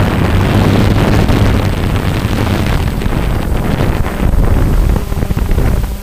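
Multirotor drone in flight: a steady hum from its motors and propellers under loud, rumbling wind noise on its onboard camera microphone.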